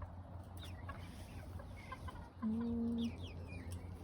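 Backyard chickens clucking and peeping in short falling chirps while they peck at apple pieces. About two and a half seconds in comes the loudest sound, a single low steady note lasting about half a second.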